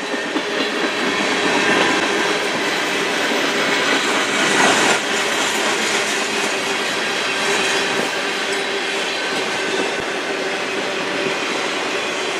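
Cars of a freight train rolling past at steady speed: a continuous noise of steel wheels on the rails with faint high wheel squeal tones, swelling briefly about four to five seconds in.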